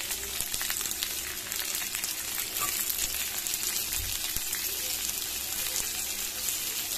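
Sliced onions sizzling and crackling in hot oil in a kadai, stirred with a steel spatula, with a few soft knocks of the spatula against the pan about four seconds in.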